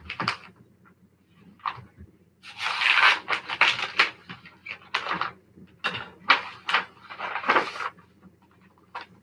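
A sealed paper envelope being torn open and the bid documents inside pulled out and handled: a run of paper tearing and rustling, busiest from about two and a half seconds in, with shorter sharp rustles after.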